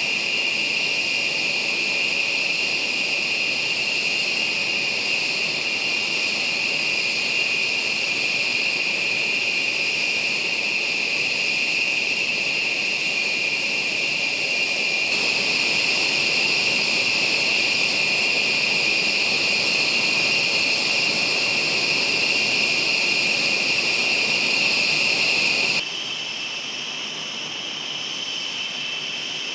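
Rockwell B-1B Lancer's General Electric F101 turbofan engines idling while the bomber stands parked: a steady high-pitched jet whine over a rushing hiss. Near the end the sound drops a little in level and the whine sits slightly higher.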